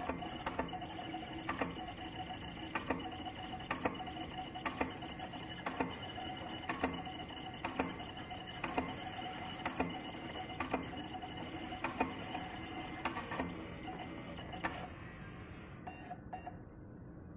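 SkyCut cutting plotter cutting: its carriage motors run steadily as the blade head moves over the sheet, with a sharp click about once a second. The motor sound stops about fifteen seconds in.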